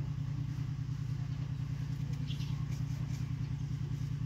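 A small engine running steadily at an even, fast beat.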